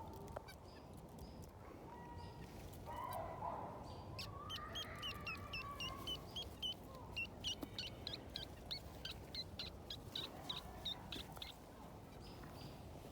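Wild birds calling: a lower, honk-like call about three seconds in, then a rapid series of short high chirps, about three or four a second, for some seven seconds.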